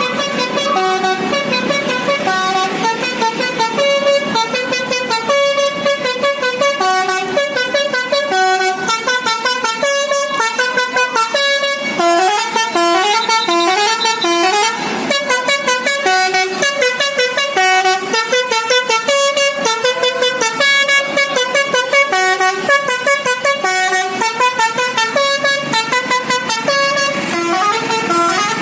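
Indonesian bus 'telolet' musical horn, basuri type, playing a fast tune of short stepped notes without a break, with a run of quick upward slides in the middle.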